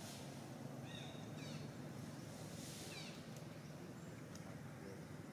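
Short high-pitched chirping calls: two quick runs of falling notes, about a second in and again about three seconds in, over a steady low background hum.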